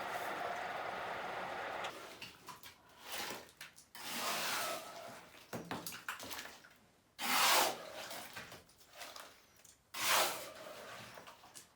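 Water in a flooded cellar splashing and sloshing in irregular surges, with three louder splashes. A steady running sound cuts off about two seconds in.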